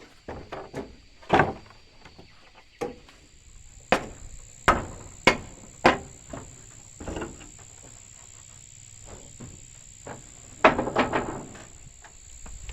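Irregular hammer blows and knocks on wood, a quieter stretch midway, then a quick cluster of knocks near the end. A steady high-pitched insect drone comes in a few seconds in and carries on underneath.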